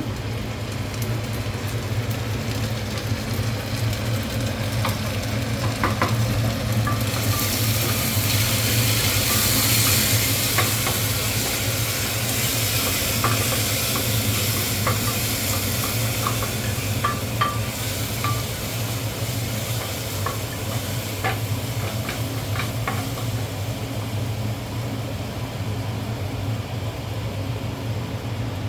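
Onions and ginger-garlic paste sizzling in hot oil in a pan, stirred with a spatula that clicks and scrapes against the pan. The sizzle swells about seven seconds in and eases off again, over a steady low hum.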